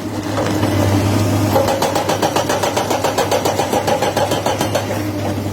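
Excavator's diesel engine running steadily under load with a low hum and a regular pulsing, over many small clicks and knocks.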